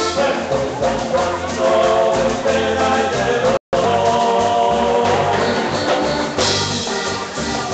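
A live Latin dance band playing with a singer, with accordion, keyboard and percussion, loud through a phone's microphone in the crowd. The recording drops out for an instant about halfway through.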